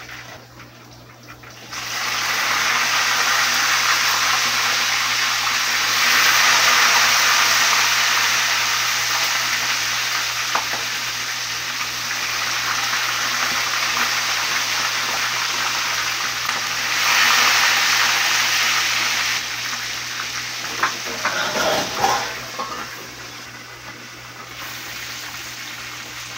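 Chicken pieces deep-frying in hot oil in a wok: a loud, steady sizzle that starts suddenly about two seconds in and eases off over the last few seconds, with a few metal clicks near the end.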